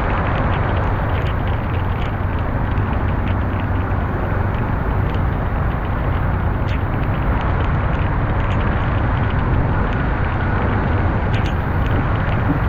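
Steady vehicle noise from a car on the move: a constant low hum under an even wash of road noise, with scattered faint ticks.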